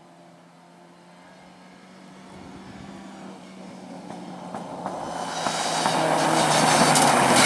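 Rally car engine approaching at speed, its steady note growing from faint in the distance to loud near the end.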